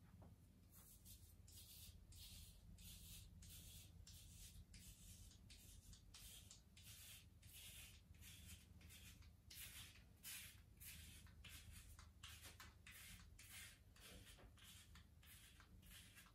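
Razor scraping through lathered stubble on a scalp in short repeated strokes, faint scratchy rasps a little under two a second, starting about a second in. The stubble is a head shaved again after four weeks of growth.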